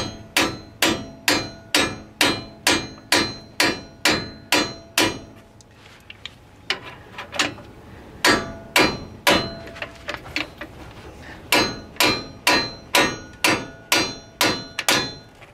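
A hammer striking the handle of an aluminium bearing driver, about two sharp metallic taps a second in runs with short pauses, driving a freezer-chilled axle bearing into the rear axle housing's bore. The strikes ring, and the change in their metallic tone is the sign that the bearing has seated fully.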